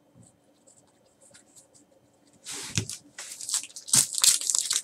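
Foil wrapper of a Panini Select basketball card pack being torn open and crinkled by hand, in a run of quick rustling bursts that start about halfway through and grow louder near the end. Before that there are only a few faint ticks of cards being handled.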